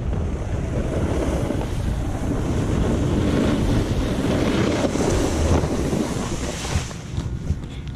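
Wind rushing over a GoPro microphone mixed with the hiss of a snowboard sliding over groomed snow, as the rider carries downhill at speed. The sound eases a little about a second before the end.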